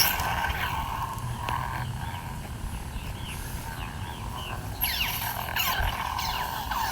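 Xeno Pixel V3 replica lightsaber playing its sound font: a steady electronic blade hum with swing sounds bending up and down in pitch, and a quick run of louder swooshes about five seconds in.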